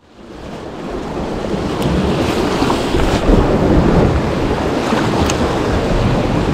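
Small sea waves washing and splashing against rocks at the foot of a concrete seawall, with gusty wind buffeting the microphone. The sound fades in over the first second or so, and a few faint clicks are heard.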